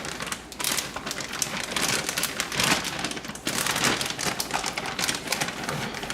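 A large plastic zip-top bag crinkling and rustling as it is handled with ribs and marinade inside, in a dense run of short crackles.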